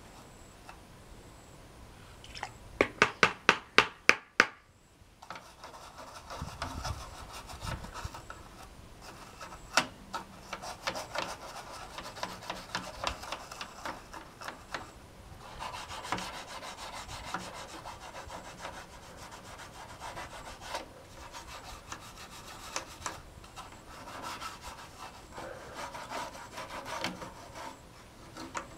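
Hand scrubbing of stains on the case of a 1991 Packard Bell Legend 386X computer: a steady, scratchy rubbing. Near the start there is a quick run of about eight sharp clicks.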